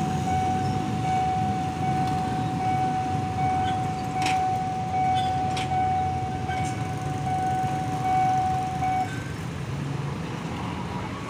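Railway level-crossing warning alarm sounding a steady high tone. It stops about nine seconds in as the barrier arms lift. Underneath, motorcycles and cars run over the crossing, with a couple of short knocks.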